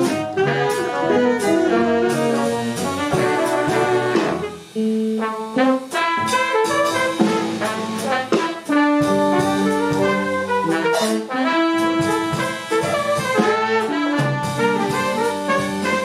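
Jazz octet playing live: trumpet, trombone, tenor and baritone saxophones play a line together in harmony over double bass, piano, guitar and drums, with cymbal ticks through the music.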